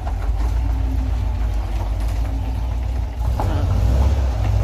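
VW Kombi engine running and being accelerated through a freshly replaced exhaust and pair of mufflers, a steady low rumble that swells louder near the end. The metallic knocking of the old broken muffler, which sounded like pans banging, is gone.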